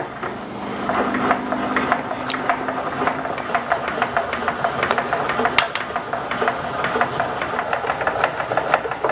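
Hand crank on a joint-strength test rig being turned steadily, winding a carriage that carries a 40-pound weight along the lever beam: a continuous fast clicking rattle. The moving weight is loading a wooden joint sample.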